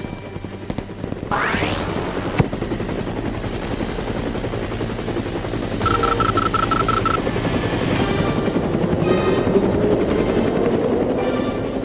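Helicopter sound effect: a steady rotor and engine drone with a rising whoosh about a second in. A quick run of high beeps comes around six seconds in, and the engine pitch climbs near the end.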